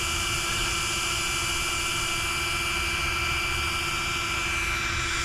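A steady whirring hiss with a few constant tones that hold one pitch throughout, the sound of a small motor running at a fixed speed.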